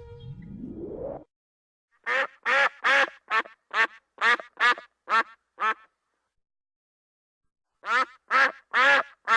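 A rising sweep in the first second, then a duck quacking in a run of about ten quick quacks, roughly three a second. After a pause of about two seconds, a second run of quacks starts near the end.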